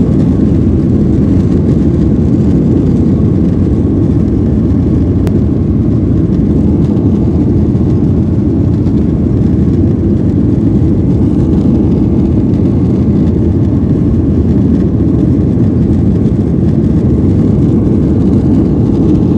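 Jet airliner cabin noise during the takeoff roll and climb-out: a loud, steady, low rumble of the engines at takeoff power and the rushing air.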